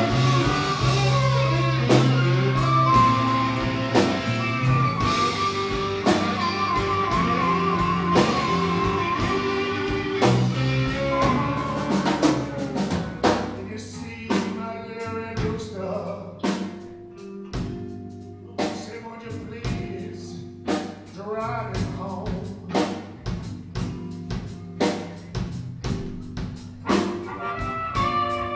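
Live blues band playing: electric guitars, bass and drum kit, with a male singer. About twelve seconds in, the band drops to quieter, sparse rhythmic hits under the vocal.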